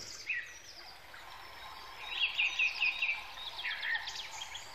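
Birds singing, with a quick run of repeated chirps about two seconds in, over faint outdoor background noise.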